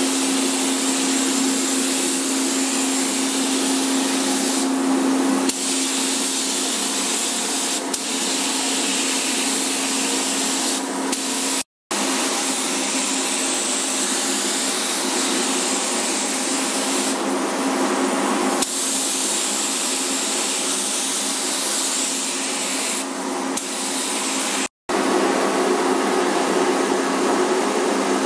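Compressed-air hiss of a gravity-feed spray gun spraying paint, over a steady hum. The sound drops out twice for a split second.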